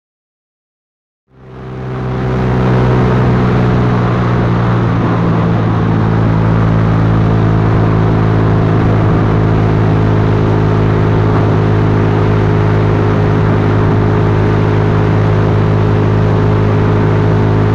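After a second or so of silence, a Yamaha Lagenda 115fi's single-cylinder four-stroke engine fades in and runs at a steady, unchanging pitch under a constant rushing noise.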